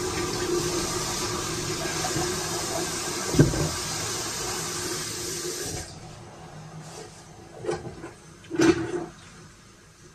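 Kitchen tap running steadily onto a plastic cutting board being rinsed in a steel sink, cut off suddenly about six seconds in. A sharp knock comes midway through, and two lighter clunks follow near the end.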